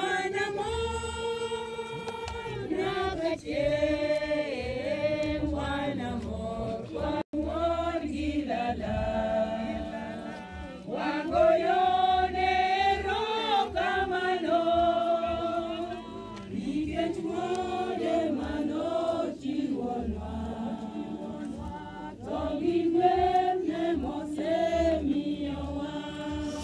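A group of voices singing a hymn together, holding long notes.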